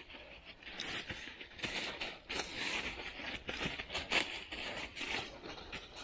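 Footsteps of a dog and a person crunching and rustling through deep dry fallen leaves, in quick, uneven strides.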